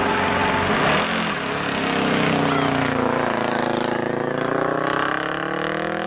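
Renault Super 5 rally car engine running hard as the car passes on a dirt-covered road. The engine note dips briefly about a second in, then climbs steadily as the car accelerates away.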